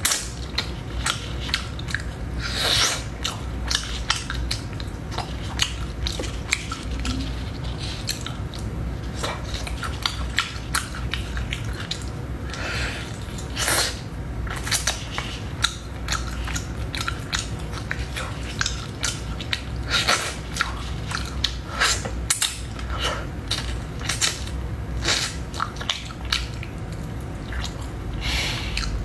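A person biting and chewing pieces of bone-in spicy chicken: many short, irregular clicks and smacks, over a steady low hum.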